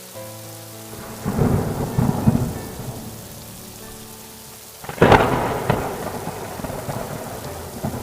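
Thunder over steady rain. A rumble rolls about a second in, then a sharper, louder crack about five seconds in dies away slowly.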